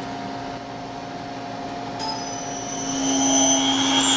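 A three-phase spindle motor run from a VFD starts forward on an M3 command. A steady hum gives way about two seconds in to high whining tones as the motor spins up, growing louder over the next second and then holding steady.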